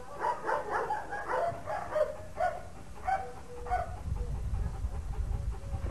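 Dog barking in a quick series of short barks for about four seconds, then stopping, leaving a low rumbling noise.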